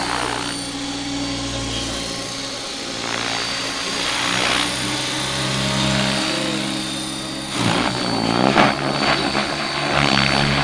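450-size scale RC helicopter (Cobra body) in flight: its electric motor and main rotor run with a steady whine and rotor whoosh. About two-thirds of the way through, the pitch dips and then rises again as the model manoeuvres, and the rushing rotor noise swells louder.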